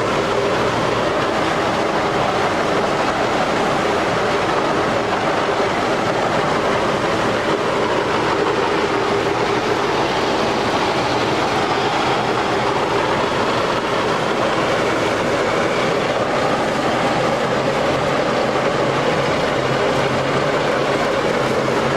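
Tandem road roller running steadily: a dense, even mechanical noise with a steady hum, unchanged in loudness throughout.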